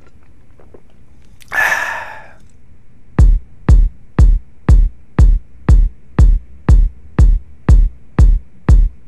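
A brief hissing burst of noise, then, about three seconds in, a steady electronic kick-drum beat starts: single deep thumps at about two a second.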